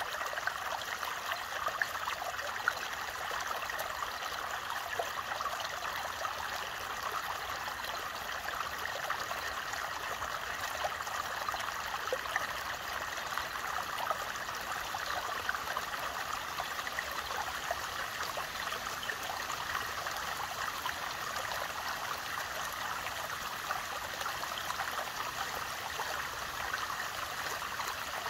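Shallow forest creek flowing over a small riffle of stones and fallen leaves: a steady babble and trickle of running water.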